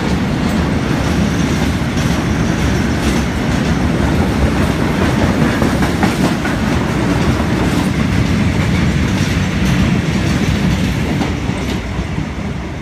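Freight train passing close by: wagons rumbling and wheels clattering over rail joints, easing off near the end.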